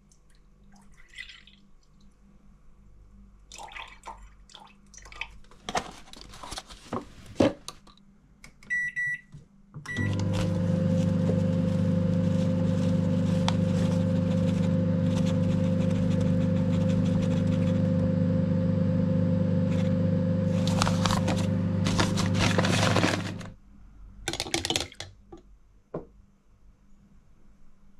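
Panasonic microwave oven: a couple of short keypad beeps, then it runs with a steady hum for about thirteen seconds, warming a jug of milk, and stops abruptly. Knocks and rustles of kitchen handling come before and after.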